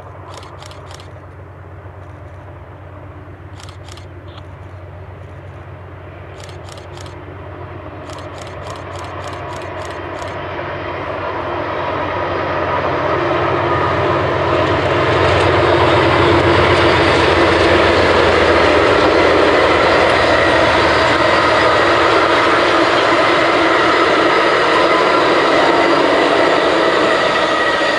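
Amtrak passenger train led by a GE P42DC diesel locomotive passing, its engine and wheel noise rising from about eight seconds in to a steady loud rumble that holds to the end. A few short high chirps sound in the first ten seconds.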